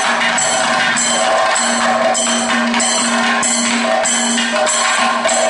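Kathakali accompaniment music: percussion striking a steady beat of about one and a half strokes a second over a held note.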